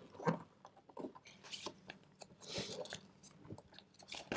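A sheet of paper being folded and creased by hand into a paper airplane: soft crackles and ticks, with a longer rustle about two and a half seconds in and a sharp tick near the end.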